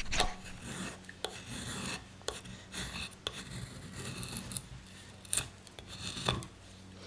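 Benchmade Griptilian folding knife shaving a cedar paddle shaft: a run of uneven scraping strokes as the blade peels off curls of wood, broken by a few sharp clicks.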